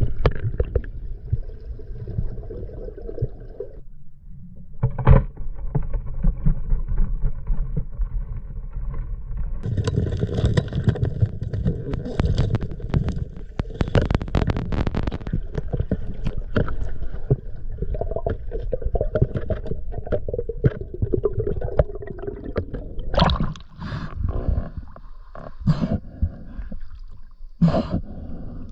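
Water gurgling and sloshing around a camera in the water, with a low rumble and scattered sharp knocks, loudest about five seconds in and several more near the end.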